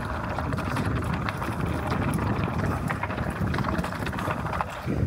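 Wind rushing over a head-worn camera's microphone while riding a mountain bike along a dirt singletrack, with the crunch and light clicking of the tyres and bike over the trail.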